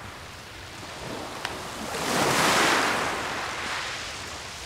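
Sea waves on the shore, one wave swelling up about two seconds in and washing back, with wind in the background.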